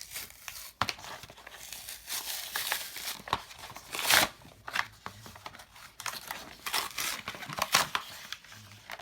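Plastic blister packaging being torn open and crinkled by hand, in irregular crackling rips with a louder tear about four seconds in.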